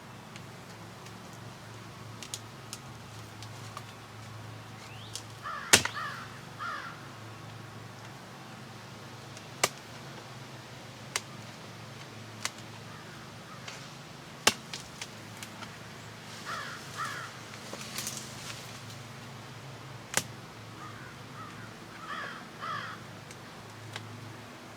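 Crows cawing in three short bursts of calls, with scattered sharp knocks and clicks in between, the loudest about six seconds in.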